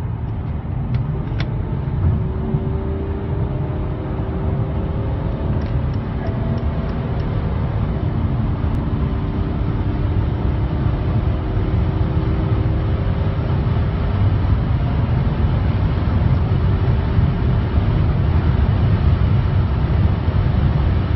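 BMW X6 diesel heard from inside the cabin while accelerating flat out at high speed: a steady low engine and road rumble, with engine tones rising slowly and the overall level building gradually.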